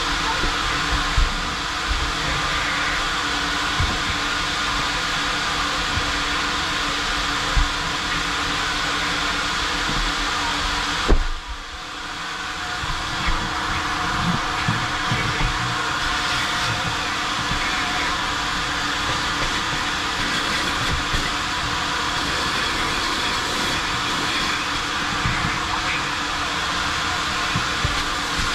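Coin-operated car wash vacuum running steadily, its hose drawing air with a steady low hum underneath, and occasional low knocks. About eleven seconds in, a sharp knock, then the rush of air drops away suddenly and builds back up over a second or two.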